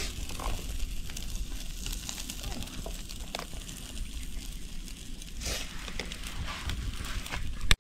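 Charcoal crackling and snakehead fish sizzling on a small wire charcoal grill as oil is brushed over them, with scattered small ticks and a sharp click near the end.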